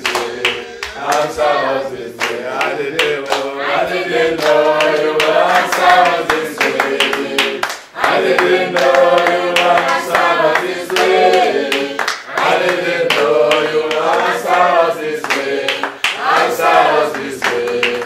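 A group of voices singing a gospel chorus together, with hands clapping along to the beat.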